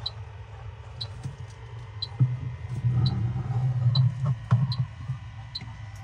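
A refrigerant leak detector's probe is sweeping the evaporator tubing, its electronic ticker beeping slowly and evenly about once a second, the resting rate that means no leak is being picked up. Under it a low hum swells from about two to five seconds in.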